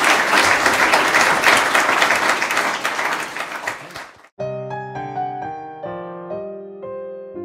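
Audience applauding, dying away about four seconds in; then music starts, with slow, held notes.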